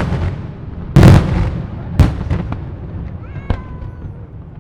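Daylight fireworks salutes: two heavy bangs about a second apart, each trailing off in a rolling echo, then a few smaller cracks and a brief whistle.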